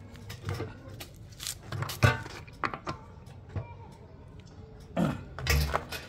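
Scattered clicks and light metallic clinks as steel caster wheels are fitted under the drum of a wet-and-dry vacuum cleaner. A sharper knock comes about two seconds in, and heavier handling thumps come near the end.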